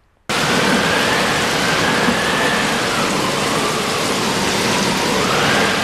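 Steady heavy rain, a loud even hiss that cuts in suddenly just after the start, with a faint high tone wavering slowly up and down above it.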